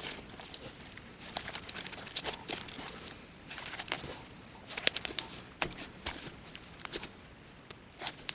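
Elmer's glue slime being kneaded and stretched by hand, giving runs of sticky, wet clicks and squelches with short pauses between handfuls.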